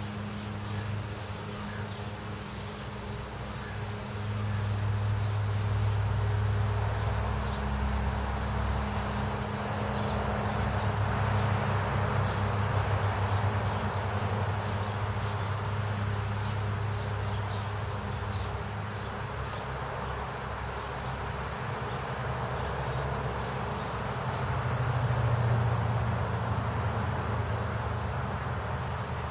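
Road traffic: cars passing, the sound of tyres and engines swelling and fading about three times over a steady low hum.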